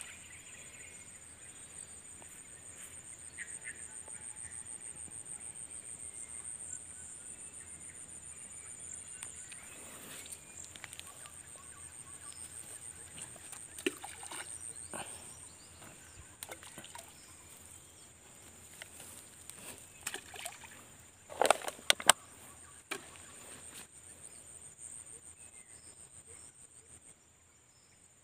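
Insects trilling steadily in a high, pulsing chorus that cuts off near the end. Scattered knocks and small splashes break in, the loudest pair about three-quarters through.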